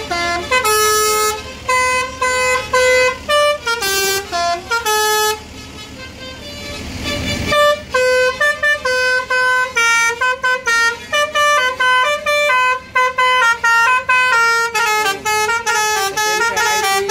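Bus telolet (basuri) musical horn playing a rapid tune of short stepped notes. About six seconds in the tune pauses while a rising rush of noise swells, then the horn tune picks up again.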